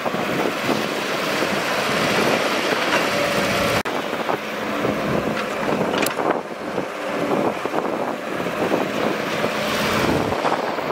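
Caterpillar tracked excavator's diesel engine working under load, with hydraulics, as it swings and dumps bucketloads of dirt into a small dump truck whose diesel engine is running alongside.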